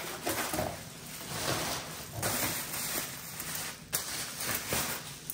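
Bubble wrap and plastic packaging crinkling and rustling as items are lifted out of a cardboard box and unwrapped, with a sharp click about four seconds in.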